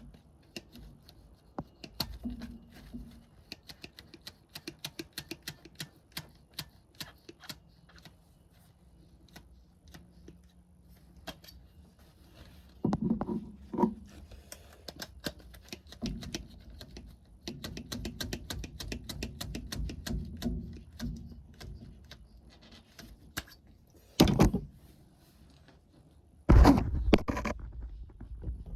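Tools and metal parts being handled: a long run of light clicks and ticks, then several louder clattering knocks, one sharp one late on and a longer loud clatter near the end.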